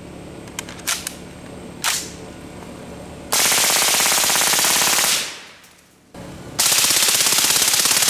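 Suppressed AR-15 firing on full auto: two bursts of about two seconds each, the first starting a little past three seconds in and the second about a second and a half after the first ends.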